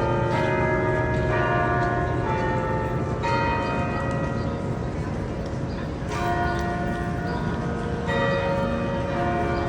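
Cathedral church bells ringing: differently pitched bells struck in turn, about one strike a second, each tone ringing on under the next. There is a short lull in new strikes about halfway through.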